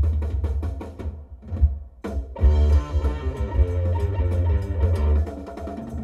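Music played loud through a Kicker Solo-Baric L7 12-inch square subwoofer in a ported enclosure tuned to 34 Hz, with heavy deep bass under a drum beat. The beat thins out about a second in, and a plucked-string riff comes in over the bass about two seconds in.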